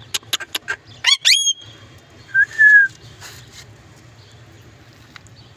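Indian ringneck parrot calling: a quick run of short, sharp chirps, then two fast rising whistles about a second in, and one short whistled call a moment later.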